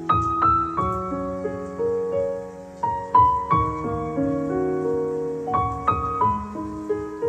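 Background piano music: a slow, gentle melody of struck notes and held chords.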